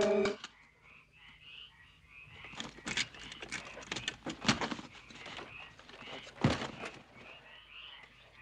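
Night ambience of frogs croaking in short repeated calls, with a few knocks and rustles about three, four and a half and six and a half seconds in. A swell of music cuts off abruptly at the very start.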